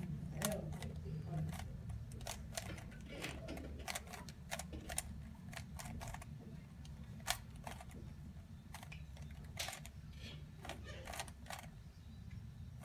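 A Rubik's cube being turned quickly by hand while it is solved: the plastic layers give off a fast, irregular run of sharp clicks and clacks.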